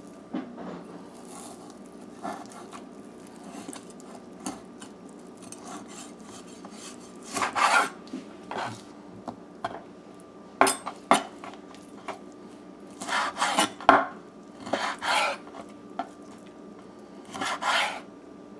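A kitchen knife cuts raw chicken drumstick meat on a wooden cutting board: short scraping strokes of the blade and a few sharp taps of the knife against the board. A faint steady hum runs underneath.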